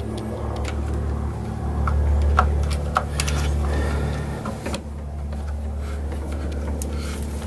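A steady low machine hum runs throughout, with scattered light clicks and rubbing as electrical cable is handled and fed into a plastic outlet box.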